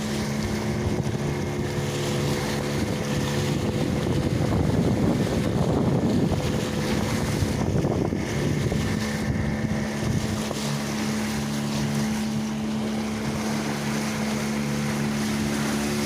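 Boat's outboard engine running steadily under way, with wind on the microphone and the rush of water against the hull; the splashing swells for a few seconds near the middle.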